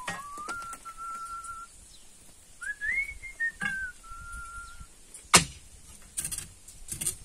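A person whistling a tune, holding single notes and sliding between them. A single sharp knock comes about five seconds in, followed by a few lighter knocks near the end.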